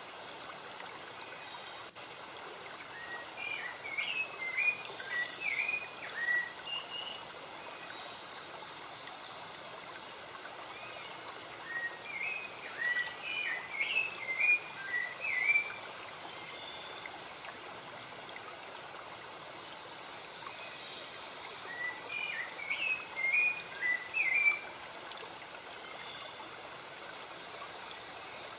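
Steady running water with a songbird singing a short phrase of quick chirps three times, roughly every nine seconds.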